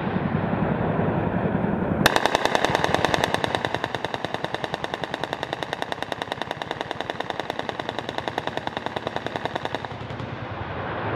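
M197 20 mm three-barrel rotary cannon firing one long, rapid, evenly spaced burst that starts suddenly about two seconds in and trails off near the end, with a low rumble before it.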